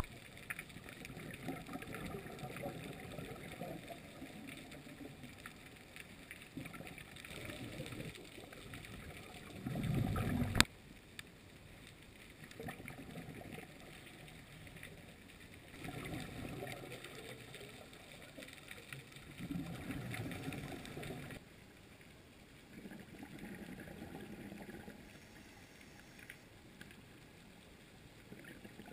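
Muffled underwater water noise swelling and fading in surges every few seconds, with a louder low rush that ends in a sharp knock about ten seconds in.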